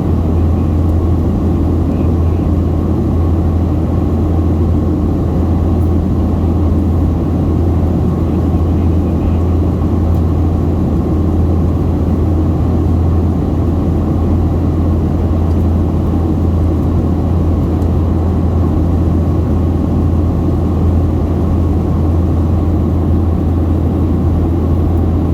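Steady cabin noise of a Boeing 737-700 in flight: an even rush of airflow over a low, constant hum from its CFM56-7B engines, heard from inside the passenger cabin.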